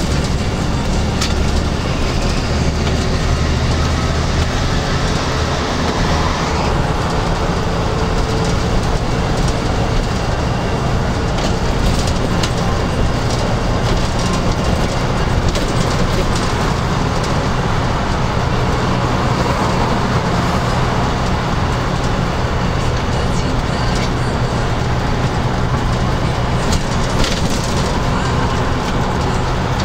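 Inside a LiAZ-5256.13 bus at highway speed: its engine drones steadily under loud tyre and road noise, with a few light cabin rattles.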